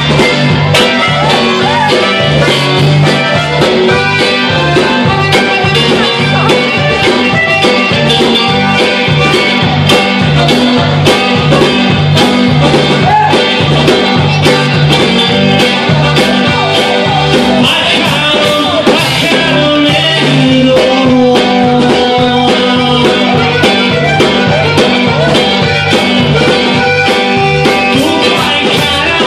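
Live band playing with accordion, guitar, electric bass and drum kit, the drums keeping a steady beat under a continuous bass line.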